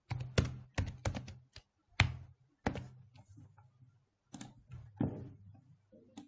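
Computer keyboard being typed on in short runs of key clicks, with a few single clicks and pauses between them.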